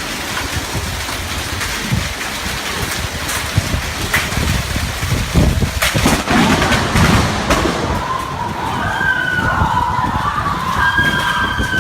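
Heavy rain pouring down in a thunderstorm, a steady hiss with low rumbling underneath. About eight seconds in, the wavering tones of a siren come in over the rain.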